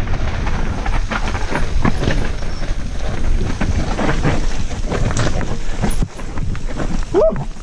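Mountain bike running down a rough, rocky trail: tyres rolling over stones, with the bike clattering and knocking at frequent irregular impacts.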